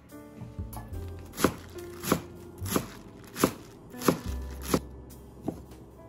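Kitchen knife chopping napa cabbage on a wooden cutting board: a sharp knock of the blade on the board about every two-thirds of a second, starting about a second in.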